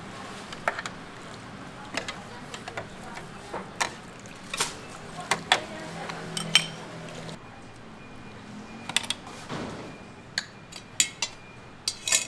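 Metal ladle clinking and tapping against a porcelain bowl and a stainless-steel pot as food is scooped into the bowl: irregular sharp clinks, some ringing briefly, with a quick cluster of clinks near the end.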